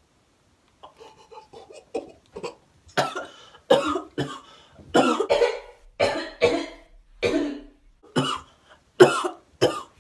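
Fits of harsh coughing: faint, short coughs at first, then about a dozen loud coughs in quick succession from about three seconds in until near the end.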